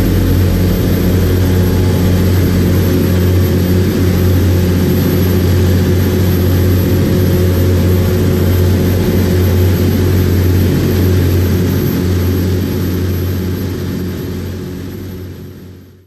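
Yuchai YC6T540C six-cylinder turbocharged marine diesel running steadily, heard close up in the engine room with a strong low hum. The sound fades out over the last few seconds.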